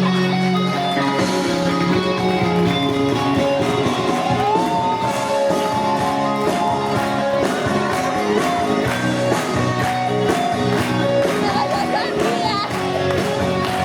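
Rock music with guitar and a singing voice, with voices of people talking underneath.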